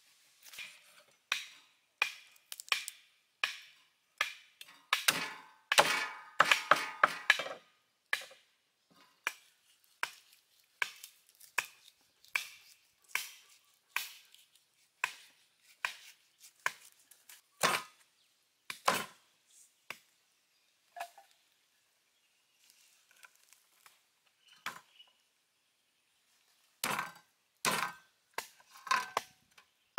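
Large kitchen knife cutting a rack of raw beef ribs apart on a round wooden chopping board: irregular knocks and taps of the blade against bone and board. There is a quick flurry of strokes about six seconds in and a lull of several seconds in the second half.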